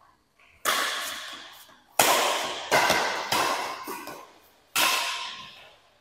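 Badminton racket strikes on a shuttlecock during a rally, five sharp cracks at uneven spacing, each ringing out for about a second in the hard-walled hall.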